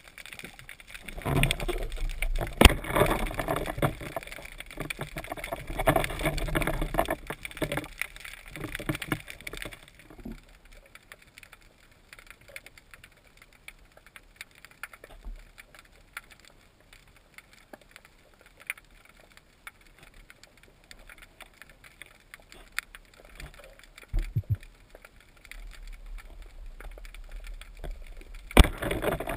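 Water sloshing and splashing around an action camera in a waterproof housing during a freedive for about ten seconds, then quieter underwater sound with scattered faint clicks, and a single sharp click shortly before the end.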